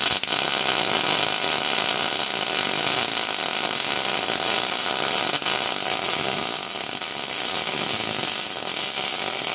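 Electric arc welding: the arc's steady, unbroken crackling hiss as a weld bead is run.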